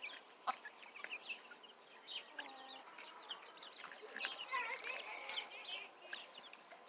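Backyard chickens calling: many short, high chirps and peeps scattered throughout, with a few clucks, fairly faint.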